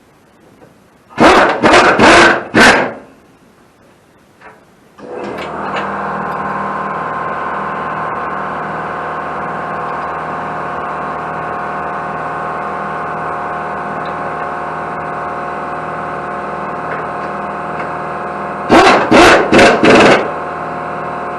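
Pneumatic impact wrench rattling in four short bursts about a second in, running down 9/16 bolts. About five seconds in a steady motor hum starts and keeps running, typical of an air compressor kicking on. Near the end the impact wrench fires four more short bursts.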